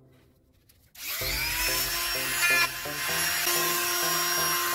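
Gamma mini rotary tool switching on about a second in, its whine rising as the motor spins up, then running steadily with a high hiss as it works a bit into acrylic sheet.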